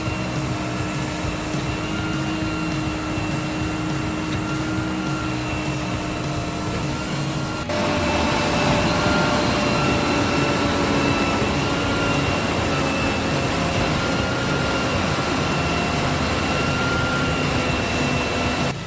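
Concrete mixer machine running steadily, a loud mechanical drone with a few held tones. A little under eight seconds in, the sound changes abruptly to a louder, slightly different pitch.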